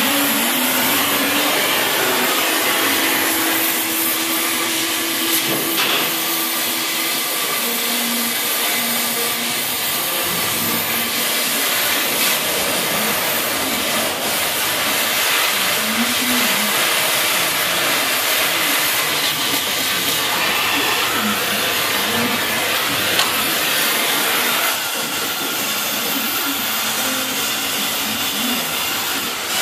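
A cutting torch hissing steadily as it burns through steel at a car's front wheel, throwing sparks.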